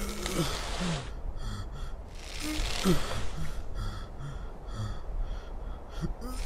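A sheep's short breaths and snorts over wind gusting across grass, the wind rising and falling in surges.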